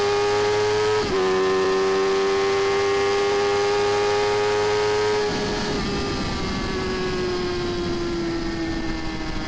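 Sport motorcycle engine heard from onboard at full throttle, its note climbing with a quick upshift about a second in. About five seconds in the throttle is closed and the engine note falls steadily as the bike slows, over steady wind rush.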